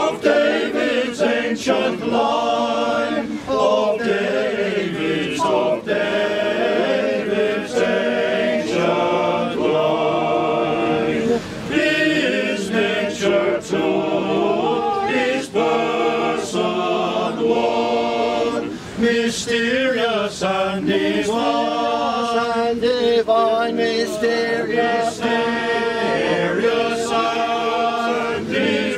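A choir singing a Christmas carol, unaccompanied, the voices moving from note to note without a break.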